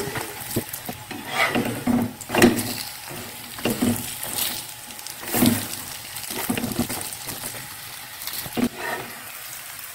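Radish-stuffed paratha frying in ghee on a non-stick pan, with a steady sizzle, broken by about ten irregular clacks and scrapes of metal tongs as it is turned and pressed against the pan.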